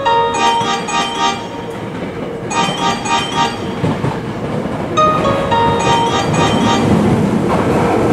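A short chime phrase of bell-like notes sounds three times, roughly every two and a half seconds, over the rising rumble of a train running into the platform.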